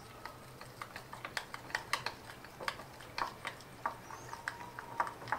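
Metal spoon stirring a wet marinade in a bowl, tapping and scraping against the bowl in quick, irregular clicks.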